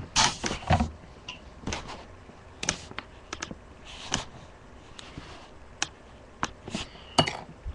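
Irregular sharp clicks and knocks of a computer case fan being handled and fitted back into a desktop case, plastic and metal parts tapping together.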